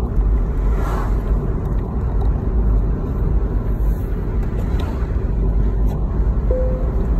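Steady road and tyre noise with a low rumble inside a moving car's cabin.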